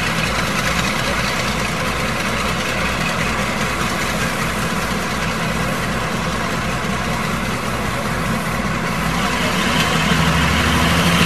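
An engine idling with a steady low throb of about two or three beats a second, growing louder near the end.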